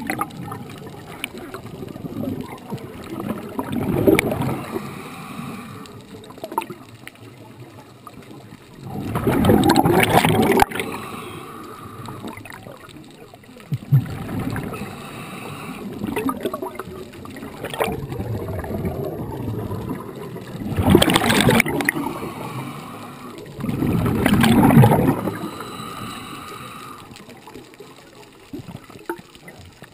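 Scuba diver breathing through a regulator underwater: bubbles gurgle out in a loud surge with each exhale, every few seconds, with quieter water noise between breaths.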